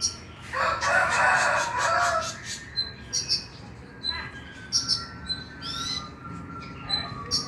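Kolibri ninja (konin), a small sunbird, singing in a lure recording. A harsh chattering call runs for about two seconds near the start, followed by scattered high, thin chirps and quick rising twitters.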